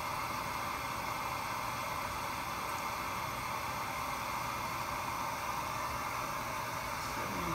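Steady, even hiss of rushing air, unchanging throughout with no clicks or other events.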